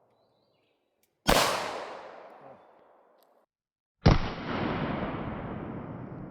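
Two gunshots about three seconds apart, each with a sharp crack followed by a long, fading echo; the second shot's tail lasts longer.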